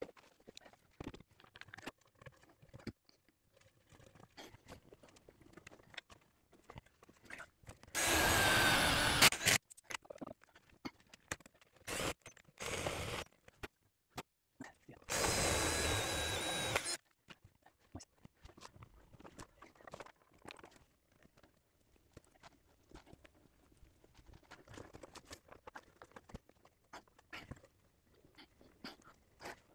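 A power drill runs in two bursts of a second or two each, about eight seconds in and again about fifteen seconds in, with a steady whine in the second. Between them come scattered light knocks and clicks of handling timber.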